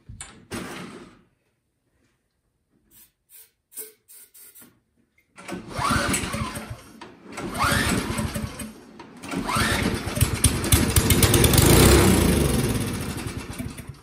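Craftsman single-stage snowblower's four-stroke engine, after a short spray of starting fluid into the carburetor, is cranked about three times and catches about nine seconds in. It runs for a few seconds, then its pitch and level fall off near the end. It fires on the starting fluid, and the owner suspects the stale gas.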